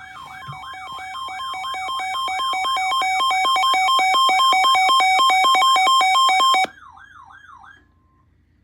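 An electronic wailing siren sweeps up and down about three times a second, overlaid by a pulsing two-tone electronic alarm that swells louder over the first few seconds. The alarm cuts off abruptly about six and a half seconds in, and the siren stops about a second later.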